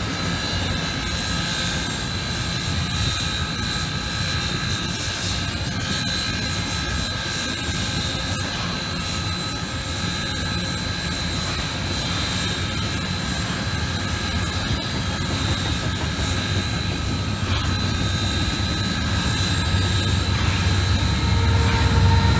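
Double-stack container freight train rolling past: a steady rumble of steel wheels on rail with a steady high whine over it. It grows louder near the end as a mid-train diesel locomotive draws near.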